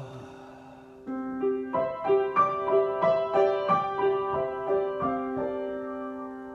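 Solo keyboard improvisation: a held low note, then an even run of single notes about three a second over sustained tones, settling back into a held chord near the end.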